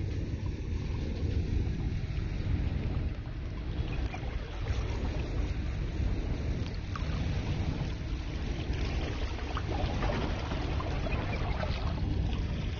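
Wind rumbling on the microphone over the wash of sea water, with scattered small ticks.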